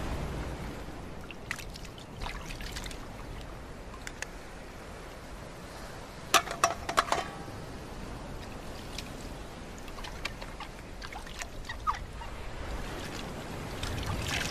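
Water splashing and trickling as small items are rinsed by hand in a rocky tide pool, over a faint wash of surf. A quick run of sharp clinks of hard objects knocking together comes about halfway through, and water pours and trickles off into a bucket near the end.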